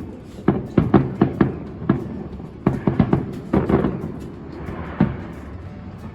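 Fireworks shells bursting in a rapid, irregular series of booms and bangs, thinning out after about four seconds to a last bang near the end.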